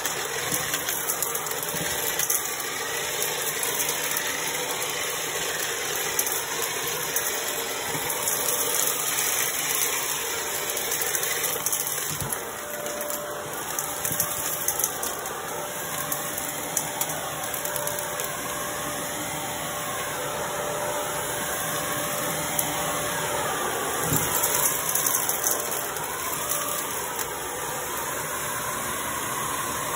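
Vacuum cleaner running steadily on carpet with a faint steady whine, with crackles and small rattles as buttons, beads and pom-poms are sucked up.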